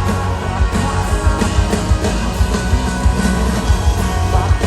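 Live rock band playing loudly, electric guitars, bass and drums, between sung lines.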